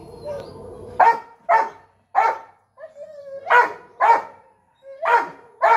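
Labrador retriever barking, about seven sharp barks starting a second in, mostly in quick pairs, at being left behind as its owner leaves.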